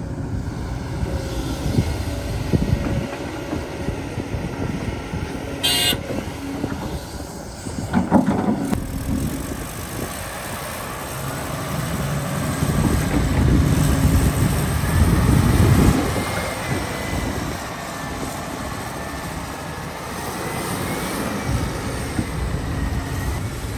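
Excavator at work, a steady mechanical rumble with a few sharp knocks and clanks. Over the second half a faint whine rises and falls, and the rumble swells louder for a few seconds.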